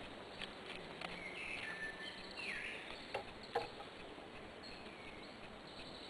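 Birds singing in the background, short chirps and warbles. A few light clicks and crackles come from dry liana being worked by hand, the sharpest two close together about three seconds in.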